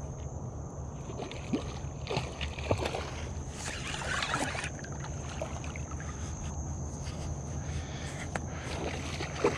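A hooked redfish being fought beside a fishing kayak: a steady low rumble of hull and camera handling with scattered clicks and knocks from the rod and reel, and a short splash of water about four seconds in.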